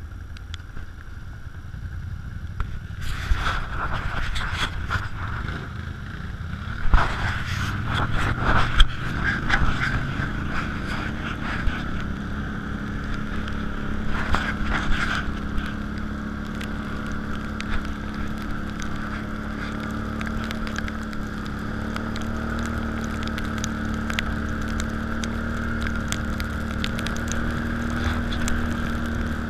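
Can-Am ATV engine running under way along a wet road, with tyre and road rumble. There are a few sharp knocks and rattles in the first half, and in the second half the engine note holds steady and slowly climbs as the quad gathers speed.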